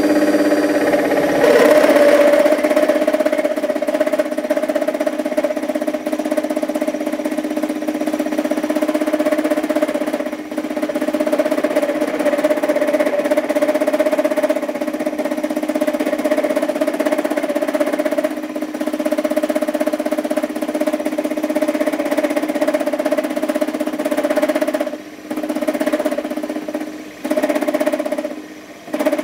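Small lathe running an end mill through aluminium plate: a steady motor-and-spindle hum with the cutting noise on top, a heavy load for such a small lathe. The sound drops away briefly three times near the end.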